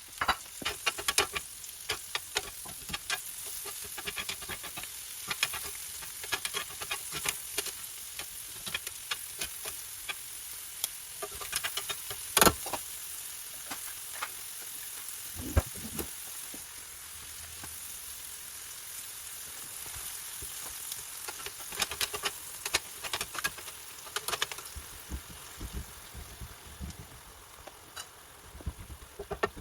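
Steak frying in a hot pan: a steady sizzling hiss with frequent small pops and crackles, and one louder sharp pop about twelve seconds in.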